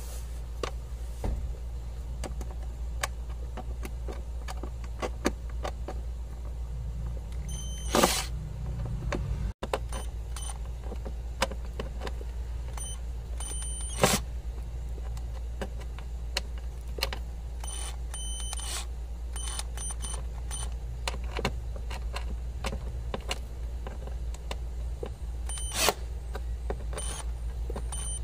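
Scattered clicks and knocks of hands and a tool working on the van's air-conditioning blower fan assembly under the dashboard, over a steady low hum.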